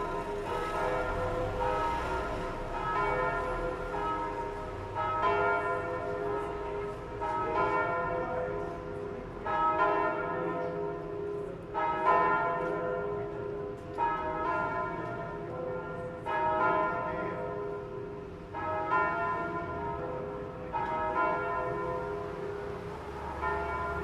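Church bells ringing to call the faithful to Sunday mass: several bells sounding together, with a strong new stroke about every two seconds and the ringing carrying on between strokes.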